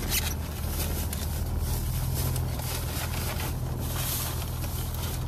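Steady low engine hum, with a few faint scrapes and rustles over it.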